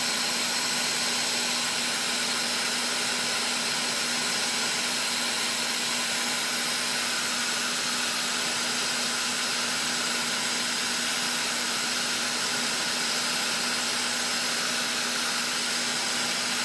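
Bench-mounted gas torch burning with a steady hiss, with a steady low hum underneath, as its flame heats a brass tube to melt out the Cerrobend bending filler.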